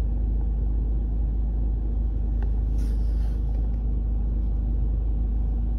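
A steady low rumble with a faint steady hum in it, like a running engine, and a brief rustle of handling about three seconds in.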